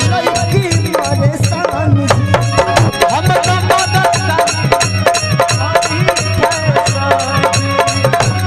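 Bhojpuri stage-show music with a fast, steady hand-drum beat, pulsing bass and a melody over it.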